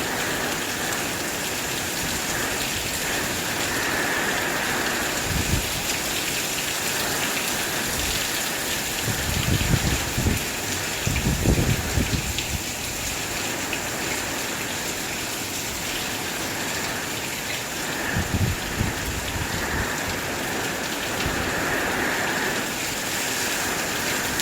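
Hurricane rain pouring down steadily. Gusts of wind buffet the microphone in brief low rumbles several times, the strongest cluster about ten seconds in.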